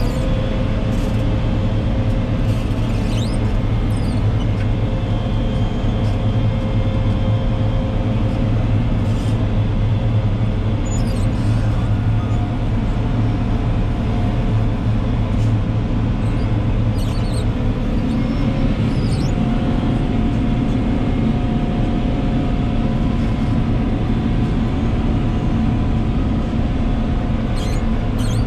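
Farm machinery engines running steadily during maize harvesting, a deep continuous drone. About two-thirds of the way through, the mix of tones in the drone shifts. A few faint short squeaks come now and then.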